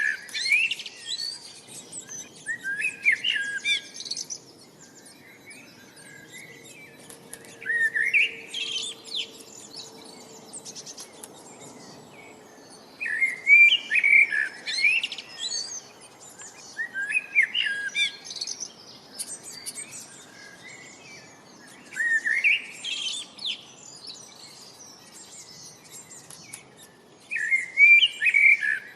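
Birds singing: one bird repeats a short, loud song phrase about every four to five seconds, with fainter chirps from other birds in between.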